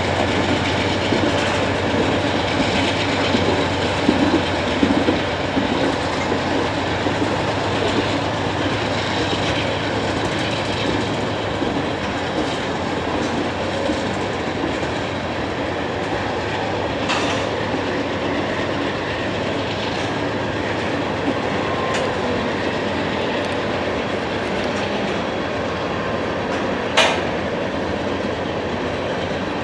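A long freight train's cars rolling past, wheels clicking steadily over the rail joints, with one sharp clack near the end.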